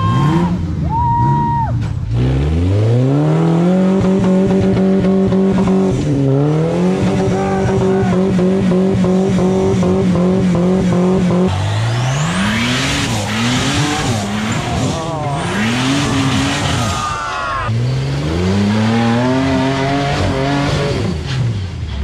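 Off-road competition buggy's engine revving hard and held at high revs, then the tyres spinning and scrabbling on wet concrete slabs while the revs surge up and down, then revving hard again near the end.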